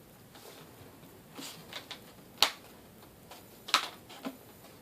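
Plastic screen bezel of an ASUS X55C laptop snapping onto the lid under hand pressure: sharp plastic clicks as its clips seat. There are two loud clicks a little over a second apart, with fainter clicks around them.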